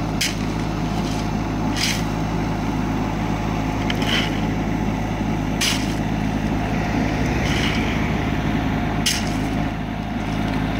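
Kubota mini excavator's diesel engine running steadily, with five short sharp clicks at irregular intervals.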